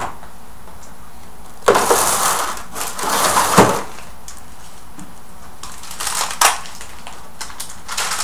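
Kitchen handling noises: three short bouts of rustling and crackling, like packaging or food being handled, the loudest about two seconds in and a shorter sharper one near the end.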